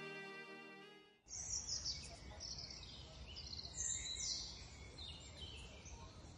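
Background music fades out in the first second, then outdoor ambience takes over: birds chirping in short, quick falling calls, loudest about a second in and again near the middle, over a low steady rumble.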